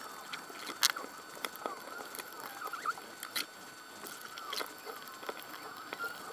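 Hard plastic parts of a toy's shell being handled and fitted together: scattered clicks and knocks with short squeaks of plastic rubbing on plastic. A faint steady high whine runs underneath.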